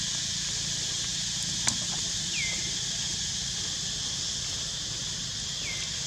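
Steady high-pitched insect drone, with a single sharp click about two seconds in and two short falling chirps, one near the middle and one near the end.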